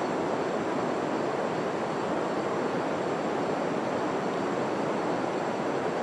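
Steady rushing of river water flowing below the bridge, an even noise without pauses.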